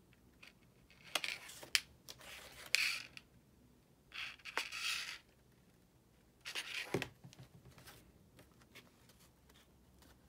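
Stiff cardstock petals rustling and scraping against each other as they are handled and glued, in four short bursts with a few sharp clicks among them.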